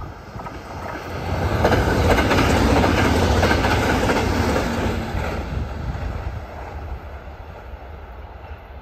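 JR West 521-series electric multiple unit passing at speed, its wheels clattering over the rail joints. The sound swells about a second in, is loudest for a few seconds as the cars go by, then fades as the train runs off.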